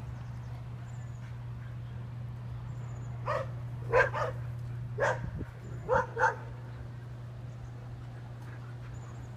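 A dog barking: six short barks over about three seconds, starting about three seconds in, some in quick pairs.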